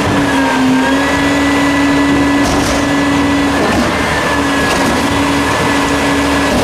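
Heil front-loading garbage truck running at raised engine revs with a steady hum to power the hydraulic lift arms as they raise a dumpster over the cab. The hum falters briefly about halfway through.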